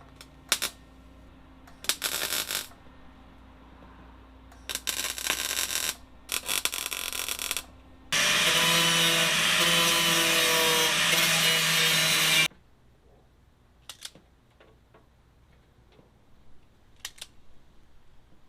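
Power tool working on the truck door's sheet metal: several short bursts, then one steady run of about four seconds with a buzzing pitch, followed by a few light clicks.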